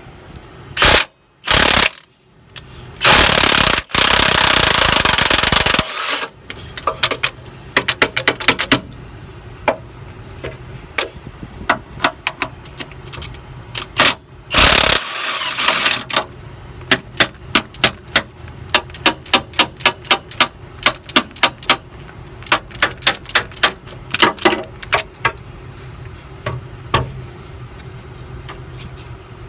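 Impact wrench hammering in several bursts, the longest about three seconds, as it undoes the top bolts of a bus's front airbag mounts. Between and after the bursts comes a long run of sharp clicks, a few each second.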